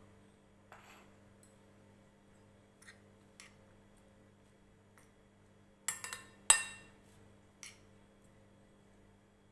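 Metal spoon mixing grated paneer and chopped vegetables in a glass bowl: scattered clinks of the spoon against the glass, loudest in a quick cluster of three a little past halfway.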